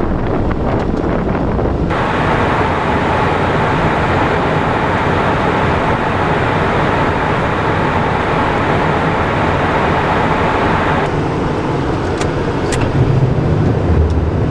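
Steady cockpit noise of a Cessna Citation Encore business jet in flight: a rush of air over the airframe and the hum of its turbofan engines. The noise changes abruptly about two seconds in and again near eleven seconds, with a few faint clicks and a low rumble near the end.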